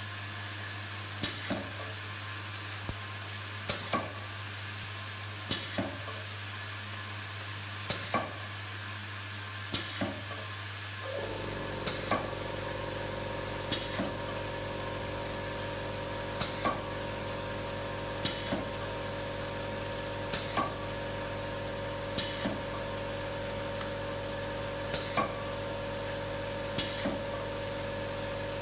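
Semi-automatic coffee valve applicator machine running with a steady electrical hum. A pair of sharp mechanical clicks comes about every two seconds as it works through its cycle. About 11 seconds in, a second, higher-pitched steady hum starts and carries on beneath the clicks.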